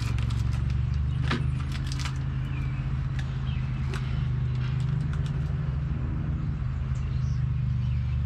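A steady low hum of an unseen machine runs throughout. Over it come scattered light clicks and taps from tools and parts being handled during the fitting.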